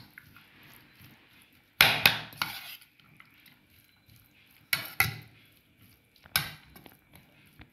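A spoon clattering and scraping against a bowl while stirring chopped vegetables and shredded chicken together, in three separate spells a couple of seconds apart, the first the loudest.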